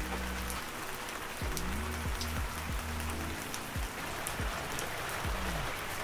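Steady rain falling on garden leaves, a continuous hiss of drops. Under it runs soft background music with a low repeating bass line and falling bass sweeps.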